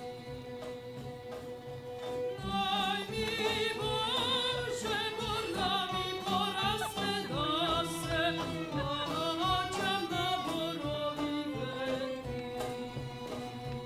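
A singer with a strong vibrato sings a slow melody over instrumental accompaniment, coming in about two seconds in after a held note.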